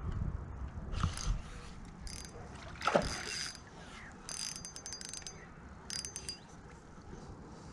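Spinning reel being worked in short spells, its gears whirring and clicking, with a louder knock of handling about three seconds in.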